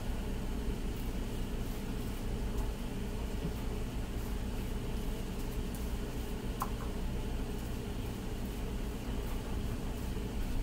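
Steady low hum with a light hiss, as from a running machine or appliance, and one short faint click about six and a half seconds in.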